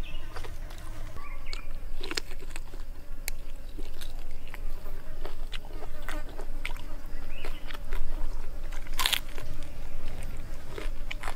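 Close-up mouth sounds of eating crispy grilled pig head meat and skin: irregular crunching and chewing, with one louder, longer crunch about nine seconds in.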